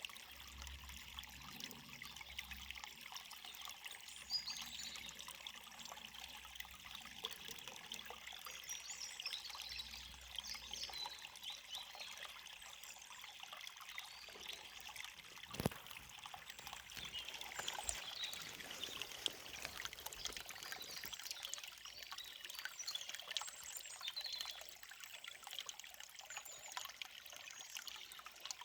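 A forest river flowing steadily, with birds chirping now and then above the water and one sharp click a little past halfway.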